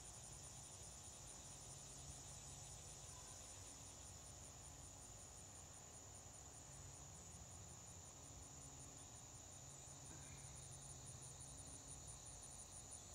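Faint, steady chorus of crickets: a high-pitched trill, evenly pulsing and unbroken.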